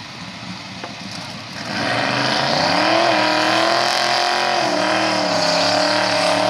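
Twin-turbo Ford Mustang GT's two-valve V8 held at high revs with the rear tyres spinning in a burnout. The engine note comes in loud about a second and a half in, holds steady with a slight waver and a hiss on top, and cuts off sharply near the end.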